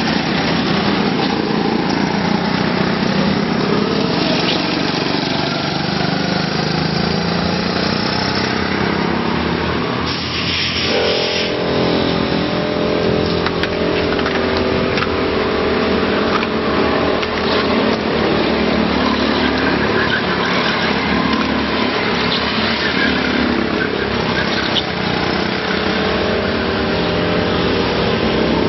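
Go-kart engines running on the track, karts passing with a dense, continuous engine drone. About ten seconds in, a steady even-pitched engine tone joins and holds.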